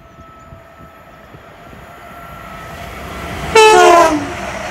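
An approaching electric multiple unit, a Class 350 Desiro, growing steadily louder. About three and a half seconds in it sounds a loud two-tone horn, high then low, for about half a second, followed by the rising rush of the train running through.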